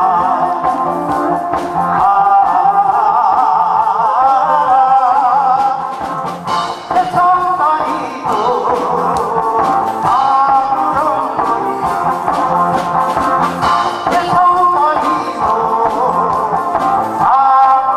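A man singing a Korean trot song into a handheld microphone over a karaoke backing track, his voice wavering with a wide vibrato.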